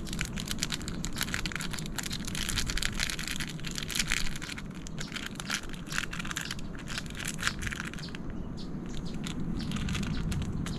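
Cooking fire crackling with many fast, irregular pops, over a steady low background noise.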